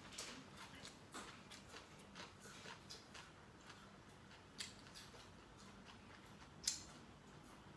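Near silence with a person chewing food: faint mouth clicks and smacks every second or so, and one sharper click near the end.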